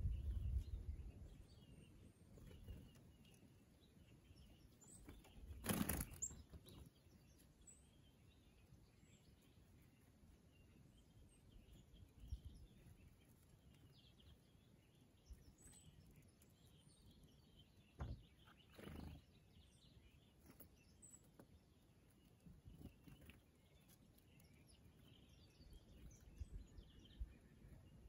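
Faint, scattered chirps of small songbirds in near silence, with a brief whoosh about six seconds in and two shorter ones around nineteen seconds.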